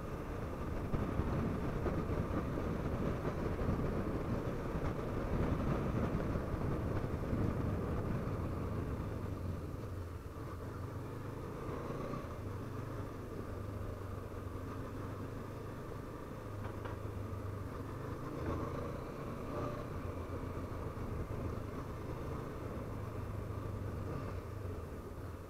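Honda CB500F parallel-twin engine running while the motorcycle is ridden along, under a steady rush of wind on the helmet microphone. The sound is a little louder in the first ten seconds or so.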